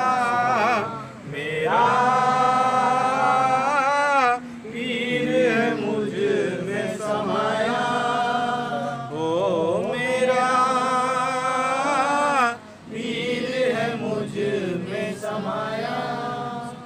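A man singing a Sufi devotional kalam in long, drawn-out phrases with wavering vibrato on the held notes, broken by short breaths. The singing ends near the close.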